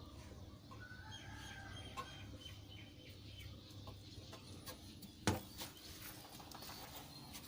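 Chickens clucking faintly, with one sharp knock about five seconds in.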